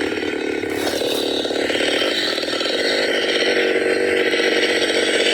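Trick or Treat Studios Leatherface chainsaw prop playing its electronic chainsaw-idle sound effect through its small built-in speaker: a steady, rhythmic two-stroke putter after it has been switched on.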